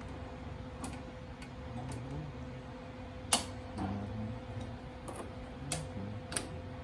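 Scattered clicks and taps from tools and metal parts being handled, one sharper knock about three seconds in, over a steady low hum.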